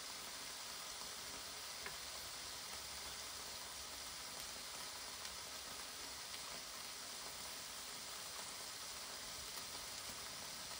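Lamb chops sizzling steadily in a Tefal OptiGrill Elite contact grill, with a few faint pops.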